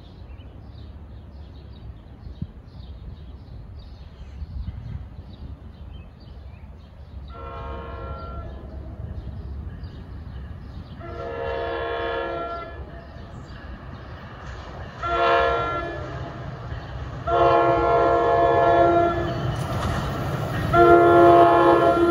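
An NJ Transit PL42AC locomotive's multi-chime air horn blowing a grade-crossing pattern as it approaches: long, long, short, long, then another long blast as it arrives. The diesel rumble grows louder as it nears. In the first half a level-crossing bell dings steadily in the background.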